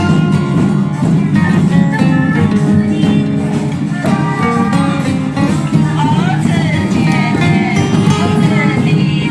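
Music led by plucked acoustic guitar, with held notes and some sliding pitches in the second half.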